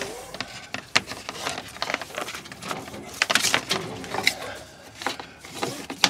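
Cable and wire being handled and pulled against wooden house siding: irregular clicks, taps and short scraping rustles.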